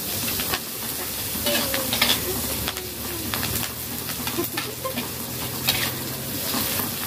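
Dried anchovies and chopped aromatics sizzling in hot oil in a stainless steel wok, stirred with a metal ladle that scrapes and clinks against the pan again and again.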